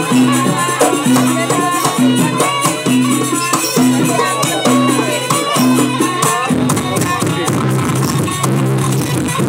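East Javanese jaranan gamelan ensemble playing a fast sampak, with a low pattern repeating about every 0.7 seconds over dense high ticking and a melody above. About six and a half seconds in, the low pattern changes.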